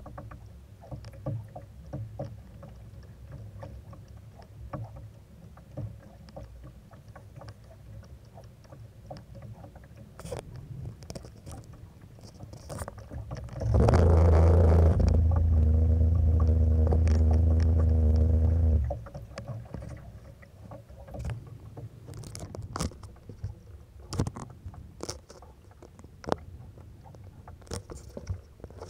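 Small waves slapping and knocking against the hull of a drifting skiff. About halfway through, a loud, steady low drone starts abruptly, lasts about five seconds, and cuts off suddenly.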